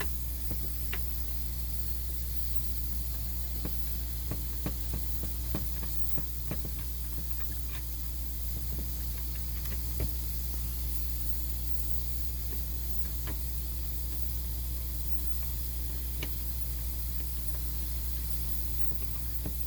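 Steady electrical hum and hiss, with scattered light clicks and ticks of a screwdriver driving the screws back into the lighting control module's cover.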